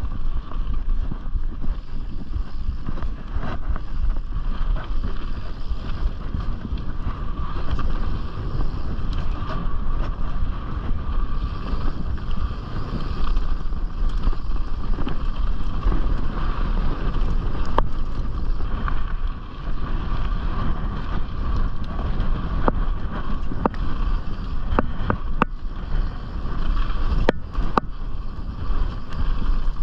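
Canyon Strive mountain bike descending a dirt trail, heard from a chest-mounted camera: wind rushing over the microphone and tyre rumble, with a steady buzz and a few sharp knocks of the bike over bumps in the second half.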